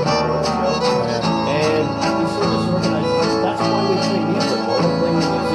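Old-time fiddle waltz with guitar accompaniment, playing at a steady beat.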